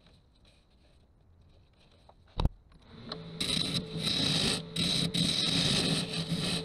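A sharp knock about two seconds in, then a wood lathe turning an ash vessel while a hollowing tool cuts inside it: a loud rough shaving noise in several passes with short breaks, over the lathe's steady hum.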